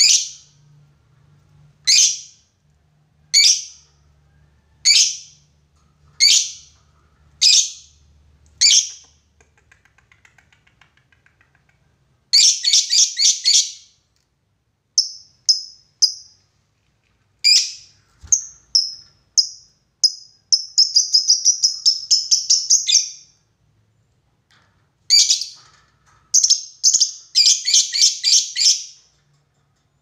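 Fischer's lovebirds calling: sharp, high chirps about every second and a half, then bursts of very rapid chattering trill, the long 'ngekek' song, about twelve seconds in, in the second half, and near the end.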